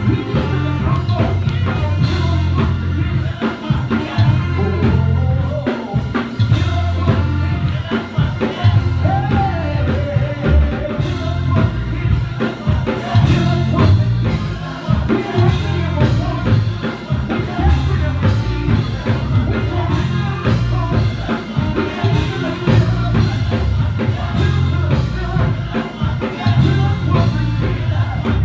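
Worship band playing with singing, drum kit and a heavy bass line, steady and loud.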